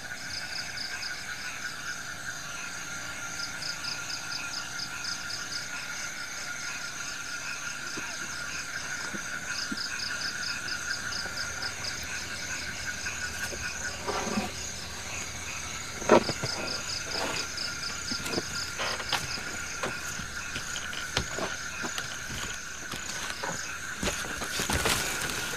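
Night chorus of frogs and insects: a steady high chirring with rapid pulsed chirps running over it. About halfway in, scattered clicks and knocks join, with one sharp knock the loudest, and a short burst of rustling comes near the end.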